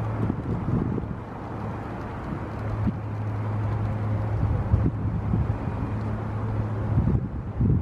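Wind buffeting the microphone in irregular low gusts, over a steady low hum of a distant engine that fades out for about a second and then returns.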